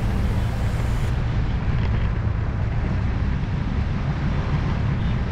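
Steady, deep rush of wind and road noise from a moving motorcycle, buffeting the microphone of a camera mounted on the bike.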